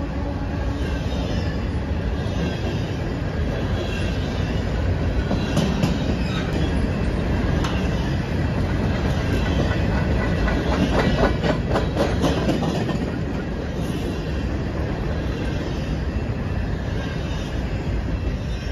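Grain train's freight cars rolling past: a steady rumble of wheels on rail with a run of clicks over rail joints, thickest in the middle, easing off near the end.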